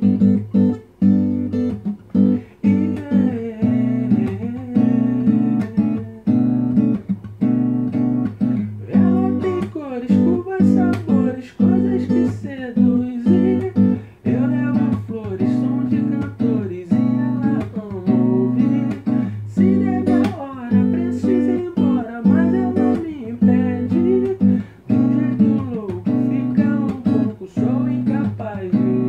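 Background music of plucked and strummed acoustic guitar, with a steady, regular strum.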